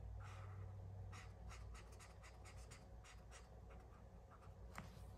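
Faint scratching of a pen or marker on paper: a string of short, irregular strokes as squares on a paper savings tracker are coloured in.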